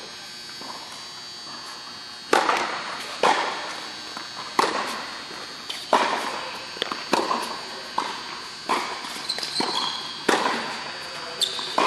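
Tennis rally on an indoor court: a ball struck by rackets and bouncing on the hard court, a sharp pop every second or so starting about two seconds in, each ringing on in the hall's echo.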